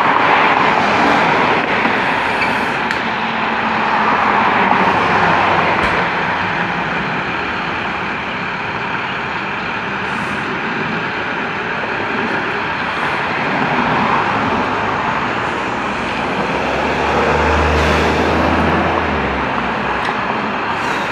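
Utility truck engines running steadily. A deeper low rumble swells for a couple of seconds near the end.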